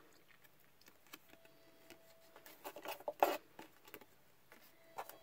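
Quiet handling noise: a printed paper card being moved and hands working in an open cardboard box full of art supplies. A short cluster of rustles and light taps comes about three seconds in, with a few faint ticks elsewhere.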